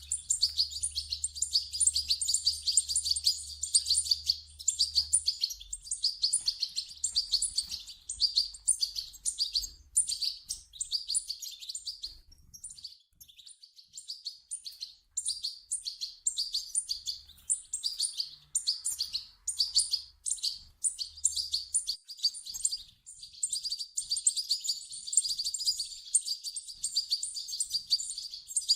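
European goldfinch chicks begging: rapid, high-pitched cheeping in dense runs, easing off briefly a little before halfway and then resuming.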